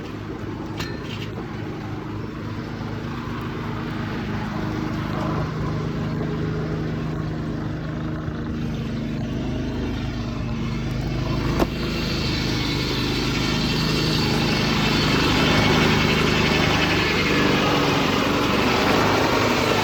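Sawmill running on its Detroit 6-71 two-stroke diesel, heard muffled from inside an overall pocket: a steady engine drone with a sharp knock about twelve seconds in, after which it grows louder with a higher hissing whine added.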